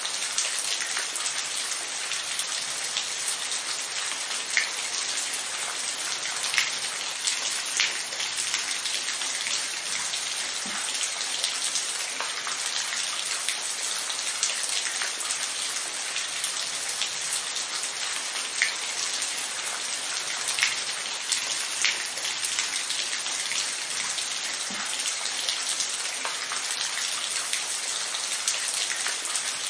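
Steady rain falling, a dense even patter with individual drops ticking louder on a surface here and there.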